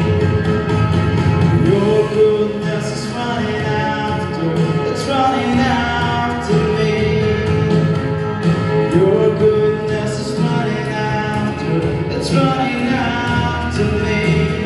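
A man singing a slow gospel worship song into a microphone over instrumental accompaniment.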